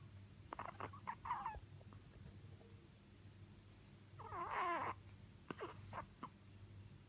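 A sleeping dog making faint, high, squeaky whimpering sounds in its sleep: a few short squeaks in the first second or two, a longer wavering whine that falls in pitch about four seconds in, then a couple more short squeaks.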